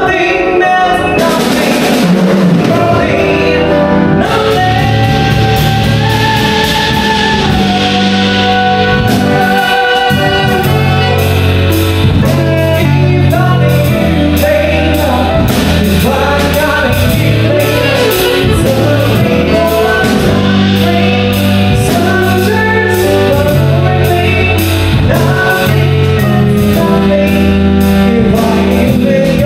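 A song with singing over a band, guitar and drums audible, with a steady beat.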